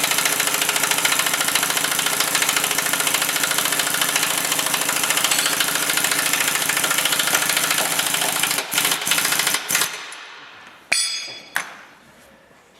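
Pneumatic impact wrench hammering rapidly and steadily as it runs a nut onto a swing-arm pivot pin. It stops about eight and a half seconds in, followed by a few sharp clicks and a short second burst near the end.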